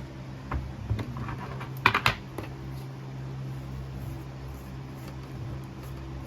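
A handful of sharp knocks and clicks from a copper-casting mold being opened and handled, the loudest cluster about two seconds in, over a steady low hum.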